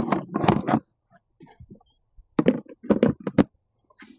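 Hard plastic tool boxes and tools being handled: a run of knocks and clicks, loudest in the first second, then several sharp knocks in quick succession a little past the middle.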